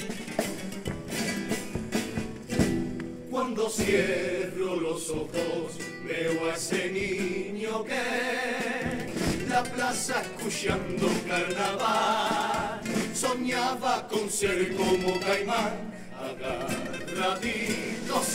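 Cádiz carnival comparsa performing: Spanish guitars strumming, with the group's chorus coming in singing together about three seconds in and carrying on to the end.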